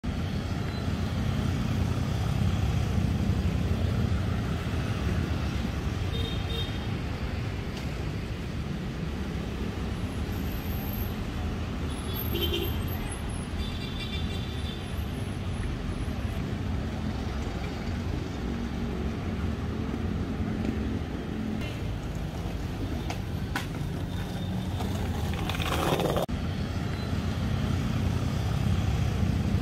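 Road traffic on a multi-lane city avenue: motorcycles and cars passing in a steady stream, with one vehicle going by louder near the end.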